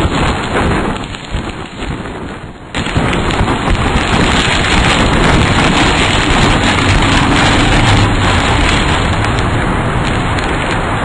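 Loud, steady rush of storm wind and heavy rain. It sags for the first couple of seconds, then cuts in suddenly louder about three seconds in and holds.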